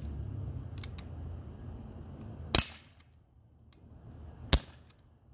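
Umarex Glock 19 Gen 3 CO2 BB pistol and its magazine being handled during reloading: low rubbing handling noise, then two loud sharp snaps about two seconds apart.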